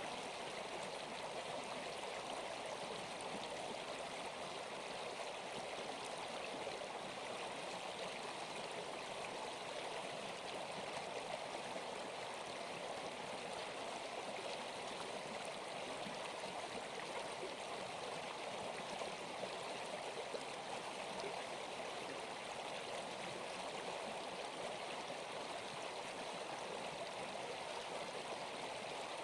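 Steady rushing noise like flowing water, unbroken and even throughout.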